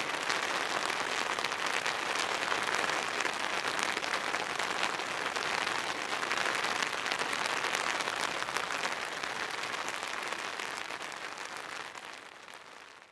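Rain falling on a tent, heard from inside: a dense, steady patter of drops on the fabric, fading out near the end.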